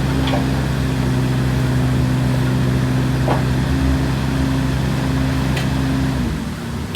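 Kubota KX016-4 mini excavator's small three-cylinder diesel engine running at a steady idle, then winding down and stopping near the end as it is shut off. A few faint clicks sound over it.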